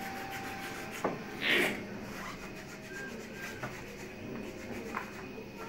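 Small carving knife scraping and shaving a block of raw meerschaum, with one short louder scrape about a second and a half in and a few light ticks.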